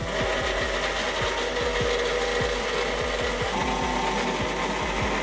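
3018 desktop CNC router's spindle and end mill cutting a clear plastic plate: a steady grinding, whirring cutting noise with a couple of high held tones through it.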